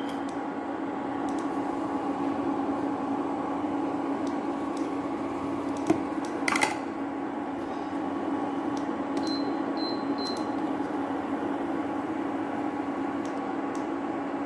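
Induction cooktop running with a steady hum from its cooling fan. Two clicks come about six seconds in. Then, between nine and ten seconds in, the cooktop gives three short high beeps as its plus button is pressed to raise the power from 2 to 5.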